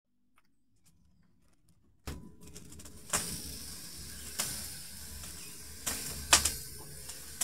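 Near silence for about two seconds, then a charcoal fire burning in a chimney starter: a steady hiss with sharp crackles and pops, the loudest about six seconds in.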